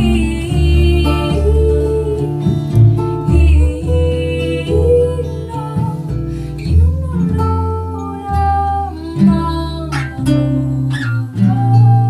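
Live acoustic song: a woman's voice singing over two acoustic guitars and a plucked double bass.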